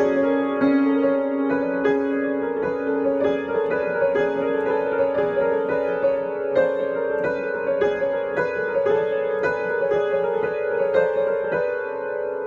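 Upright acoustic piano played by hand in a spooky improvisation: notes struck about twice a second over held lower notes. The sound begins to die away near the end.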